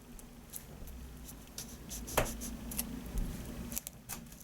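Hands handling and pressing small pieces of paper and card: light taps, clicks and rubbing, with a sharper tap about two seconds in.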